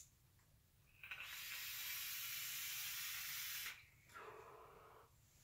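A draw on a single-coil vape: a steady airy hiss of air pulled through the atomizer for nearly three seconds, after a brief click at the start. A softer breathy exhale follows and fades out.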